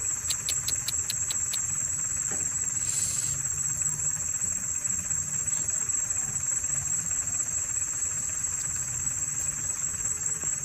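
Steady, high-pitched drone of insects, with a quick run of about eight chirping clicks at the start and a brief hiss about three seconds in, over a faint low rumble.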